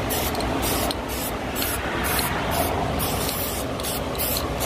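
Aerosol spray-paint can hissing in short, repeated bursts as yellow paint is sprayed onto a pulley.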